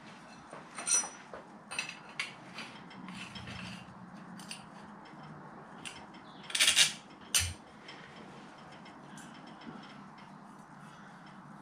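Steel extension tube being fitted onto the handle of a homemade square-tube lifting lever: scattered metal clicks and clinks, then a sharp metal clank and a knock about seven seconds in.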